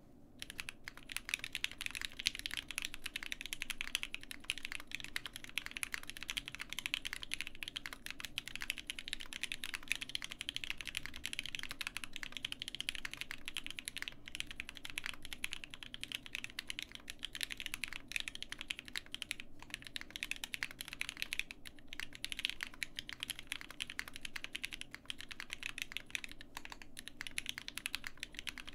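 Continuous fast typing on a gasket-mounted 65% custom mechanical keyboard (Roze 65) with Gateron Cap Yellow V2 linear switches: a dense stream of keystroke clacks with a few short pauses. The sound is fairly muted, from the gasket mount and plate foam.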